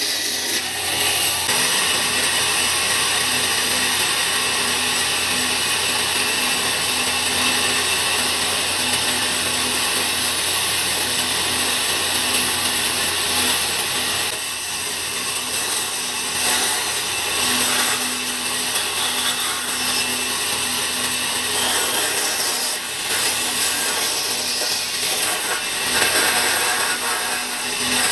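Band saw running and cutting through blocks of wood, a steady sawing noise with brief dips in level now and then.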